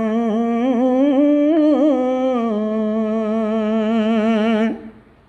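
A man singing a line of Punjabi devotional poetry unaccompanied, holding one long drawn-out note with a wavering ornament in the middle. The note ends abruptly near the end.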